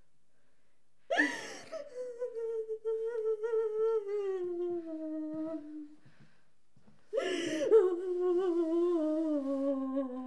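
A woman wailing in anguish, two long cries a few seconds apart. Each breaks out sharply, then slides slowly down in pitch with a wavering tremble.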